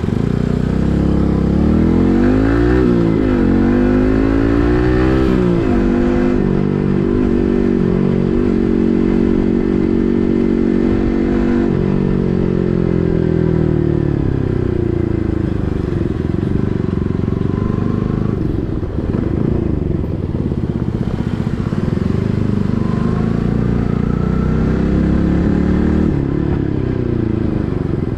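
Yamaha MT-15's 155 cc single-cylinder engine running through an SC Project full-system exhaust while riding. The revs rise and fall several times quickly in the first few seconds, then hold steadier, sink lower and climb again near the end.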